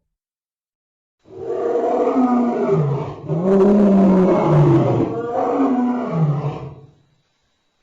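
Creature roar sound effect in the manner of a big cat: three long pitched roars, each rising and then falling, starting about a second in and running back to back until about seven seconds in.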